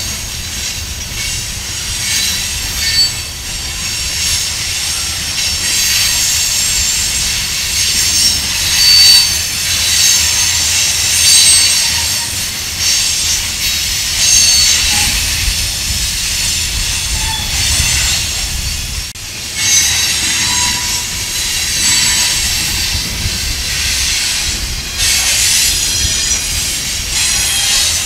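Covered hopper cars of a Union Pacific freight train rolling past on steel wheels, with a steady low rumble and a high-pitched squeal of wheels on the rails throughout.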